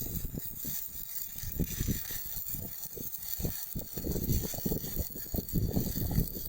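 Welding arc hissing steadily, struck just before and broken off just after, with irregular low knocks and rumbles underneath.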